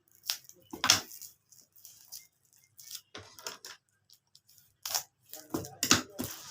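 Wrapping being torn open and pulled off a book by hand, in several short, irregular rips and rustles.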